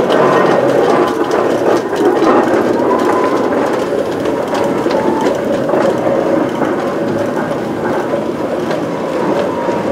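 Showman's steam road locomotive driving slowly past, its engine working steadily with clanking of the motion and many short knocks and clicks.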